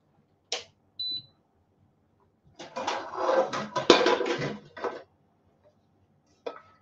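Metal pans clattering and scraping for about two seconds as a frying pan is pulled out from among other cookware. Before it come a single click and a brief high beep.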